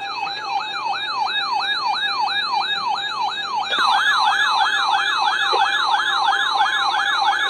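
Electronic siren tones sweeping up and down about three times a second, with a second siren joining about four seconds in and the sound growing louder. A steady beeping alert tone runs underneath.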